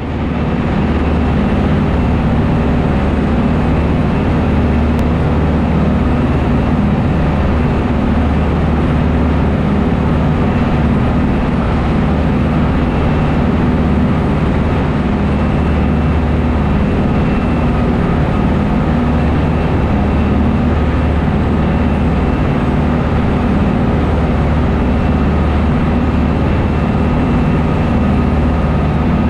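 A small shuttle boat's engines running steadily under way, a constant low drone, with the rush of the churning wake and wind over the open stern deck.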